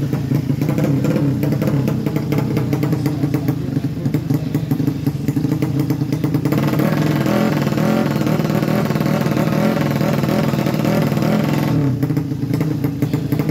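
Sleep-engine drag motorcycle with an open exhaust revving at the start line, the throttle worked up and down continuously. From about six seconds in it revs harder and sounds harsher, easing back shortly before the end.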